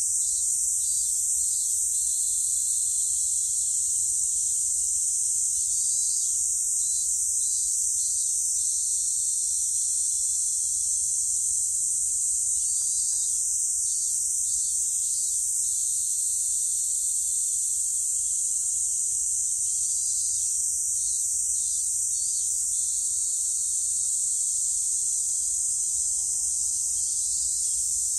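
Cicadas in a steady, unbroken high-pitched chorus. A fainter, broken chirping comes and goes just beneath it.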